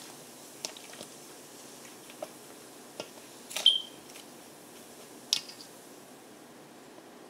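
Wet locs being squeezed and worked by hand in a stainless steel bowl of vinegar and baking soda solution: scattered small squishes and splashes, with two louder sloshes about three and a half and five seconds in.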